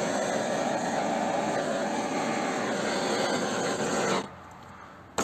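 Handheld butane cartridge gas torch burning with a steady rushing hiss as it heats the copper and aluminium joint to melt solder. The flame cuts off abruptly about four seconds in, and a single sharp click follows near the end.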